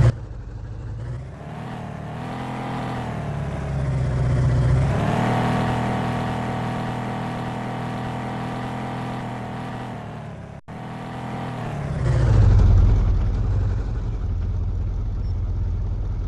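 Car engine revving: its pitch climbs twice in the first five seconds and then holds steady. After a brief cut about ten seconds in, a lower, louder engine rumble runs steadily.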